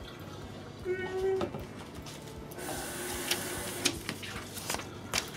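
Zip-top plastic bags being handled: crinkling and rustling with scattered sharp clicks, busiest around the middle.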